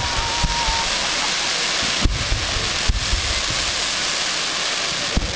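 Fireworks display: ground spark fountains hissing and crackling steadily, with several sharp bangs, the loudest about two seconds in.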